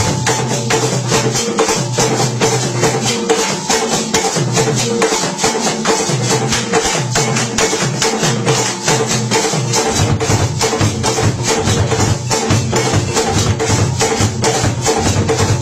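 Ewe drum ensemble playing a fast, dense rhythm on tall wooden barrel drums struck with sticks and hands. The low drum pattern changes about ten seconds in.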